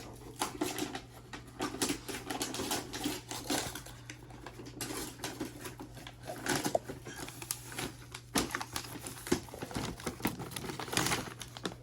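Irregular clicks, knocks and rustling of a boxed firework cake being handled, turned over and set down.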